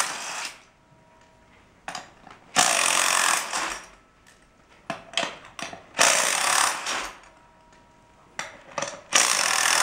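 Cordless impact wrench with a 17 mm socket hammering in bursts of about a second, roughly every three seconds, as it spins off a walk-behind tractor's wheel mounting nuts. Faint clicks and clinks of metal come between the bursts.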